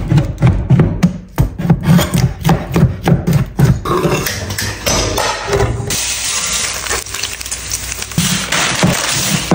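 A steel cleaver chops cured pork on an end-grain wooden board in rapid knocks, about four a second. From about six seconds in, the diced pork fat sizzles in a frying pan.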